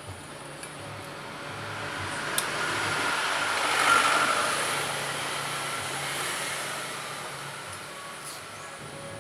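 A vehicle passing by: its noise swells to a peak about four seconds in, then fades away.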